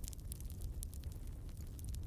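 Wood fire crackling, with many small sharp pops and snaps over a low steady rumble.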